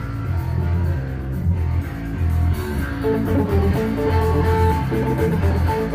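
Rock band playing live: electric guitar and drums in the opening bars of a song, loud and steady.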